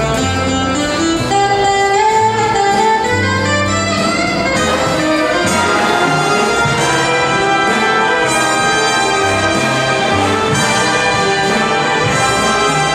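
Live big-band jazz: a saxophone solo line over the band, with the brass section playing full chords from about halfway through.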